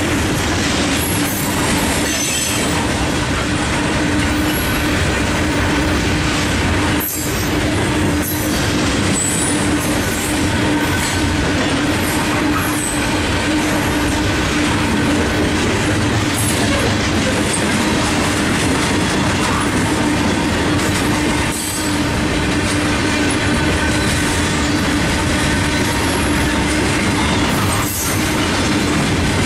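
Freight train of coal hopper cars rolling past at close range: a loud, steady rumble of steel wheels on the rails, with a steady wheel-squeal tone running through it.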